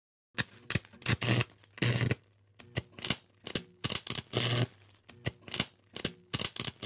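Sound effect of a flickering neon sign: irregular short bursts of electrical buzz and crackle, each with a low hum underneath, starting about half a second in.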